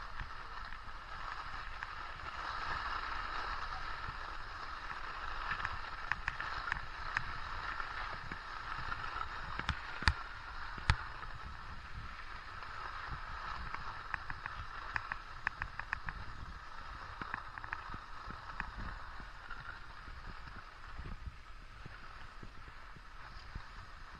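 Skis sliding and scraping over groomed snow, a steady hiss, with wind rumbling on the microphone. A few sharp clicks cut through, the two loudest close together near the middle.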